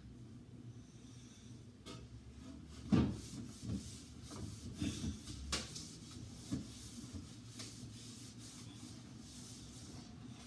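Handling noise from cleaning out a fridge drawer: rubbing and scraping, with a knock about three seconds in, the loudest, and several lighter knocks over the next few seconds.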